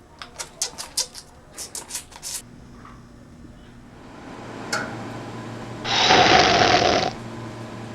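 Hand-washing at a sink: a run of quick, short rubbing strokes, then a low hum and a click, and about six seconds in a loud rush of noise lasting about a second.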